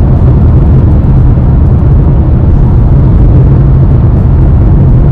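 Steady cabin noise inside a Honda Elevate cruising at highway speed: a low, even rumble of tyres, road and engine with no sudden events.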